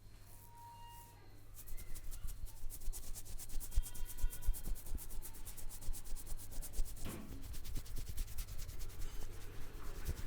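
Hands rubbing briskly over a person's scalp and hair in a head massage: a quick, regular, scratchy rubbing at about four strokes a second, starting about one and a half seconds in.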